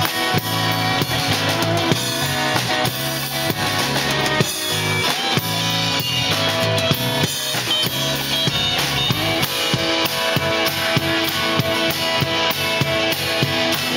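Instrumental break of a pop-rock song played live by a band, with no singing. A drum kit keeps a steady beat of bass drum and snare over sustained bass and other pitched instruments.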